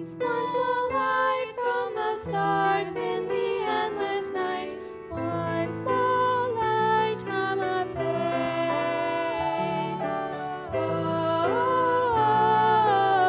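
Two young female voices singing a slow, gentle duet into microphones over a soft instrumental accompaniment with held low notes.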